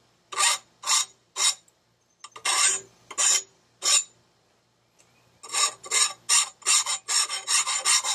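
Hand file rasping along the edge of a steel Honda HRC216 mower blade, filing off heavy burrs. Separate strokes come first, then a pause of about a second and a half past the middle, then quicker strokes, about three a second.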